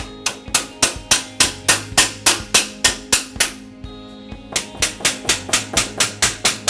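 Hammer tapping the mitred corner of an aluminum sliding screen door frame, driving the joint closed over the new corner key: quick, even taps about three to four a second, with a short break about three and a half seconds in before they resume. Background music plays underneath.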